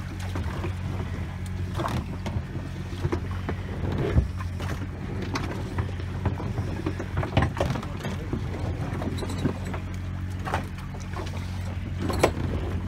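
A boat's engine idles with a steady low hum. Short splashes and knocks come now and then, the sharpest about four seconds in and near the end.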